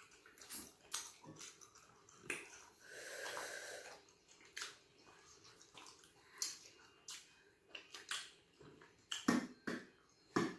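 Close-up eating sounds of starch and light soup: wet mouth clicks and smacks scattered throughout, with a longer breathy, slurp-like sound about three seconds in.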